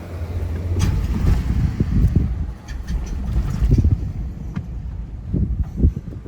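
Low rumble of a vehicle driving, with gusting wind buffeting the microphone in uneven surges.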